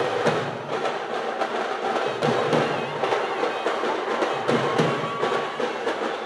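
A troupe of drummers beating large barrel drums with sticks in a fast, loud, dense rhythm, the folk drumming that accompanies a Veeragase dance. The drums come in suddenly at the start.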